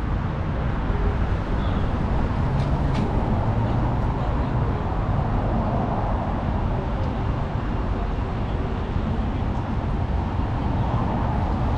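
Steady city traffic noise: a continuous low rumble of passing vehicles, with no single event standing out.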